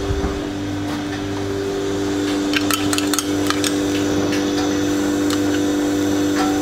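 Steady mechanical hum of kitchen equipment, with scattered light clicks and clinks from about two seconds in as a spoon and a small frying pan with a little oil are handled on a gas range.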